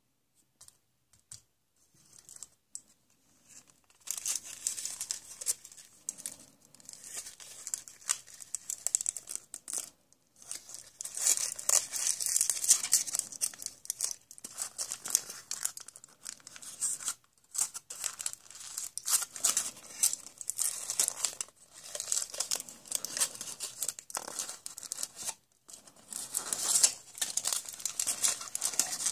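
Colored foil wrapping crinkling and tearing as it is peeled off a small toy car by hand, in bouts with short pauses. It starts faint and turns loud about four seconds in.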